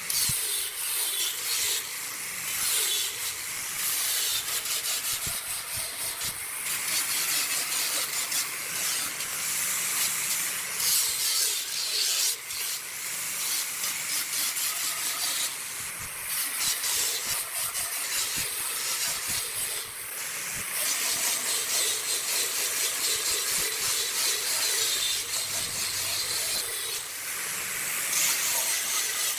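Wood turning on a lathe: a tool or abrasive rubbing against the spinning wood, a steady hissing scrape with fine ticks that swells and eases in level.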